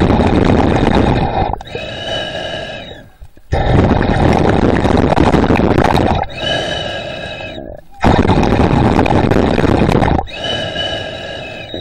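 Breathing of a swimmer holding the camera underwater, through a mouthpiece. Loud rushing breaths alternate with quieter breaths that carry a whistling tone, in a steady rhythm of about one full breath every four seconds.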